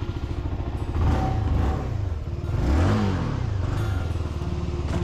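Motorcycle engine running, its pitch rising and falling a couple of times as the revs go up and down.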